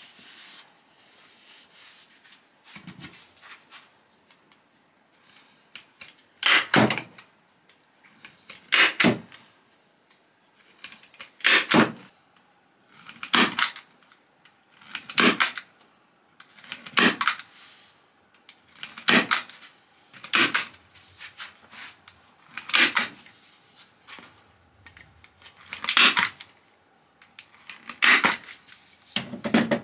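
Staple gun firing staples through upholstery fabric into the wooden seat board, about a dozen sharp snaps roughly every two seconds from about six seconds in. Fainter rustling of the fabric being pulled taut comes between the shots.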